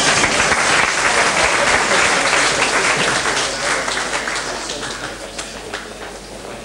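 A crowd applauding, the clapping dying away and thinning to scattered separate claps over the last few seconds.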